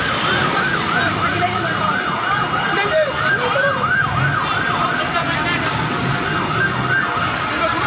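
Emergency vehicle sirens yelping in a fast up-and-down sweep, about three cycles a second, over a steady rumble of traffic and commotion.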